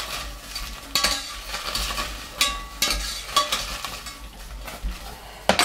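Broad beans sizzling in a little boiling water in a stainless steel saucepan as they are stirred with a spoon, which scrapes and clinks against the pan every second or so. There is a louder knock near the end.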